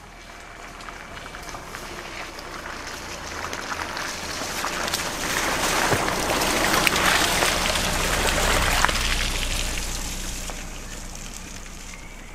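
Rain pattering on water and ground, swelling to a peak about halfway and then fading, over a low steady drone.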